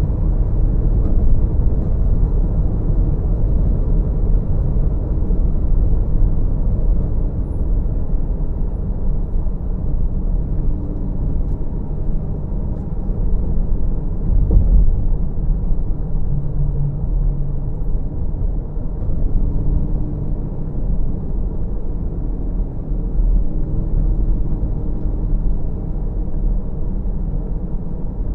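Steady low rumble of a car driving, heard from inside the cabin: tyre and engine noise, with a few faint shifts in pitch.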